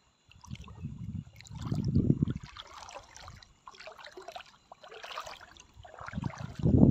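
Shallow seawater splashing and sloshing in uneven surges. There are heavier low rushes about half a second in, around two seconds in and again near the end, with fainter trickling between them.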